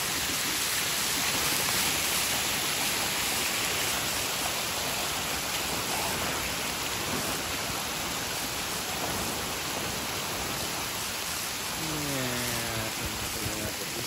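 Heavy rain falling steadily on pavement and grass, mixed with storm runoff rushing along a street gutter: an even, unbroken hiss.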